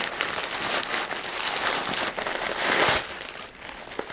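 Tissue paper being unfolded by hand, rustling and crinkling, easing off about three seconds in.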